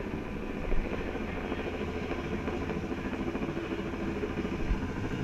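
Helicopter rotor noise overhead: a steady drone with a fast low pulsing beat. A brief knock comes just under a second in.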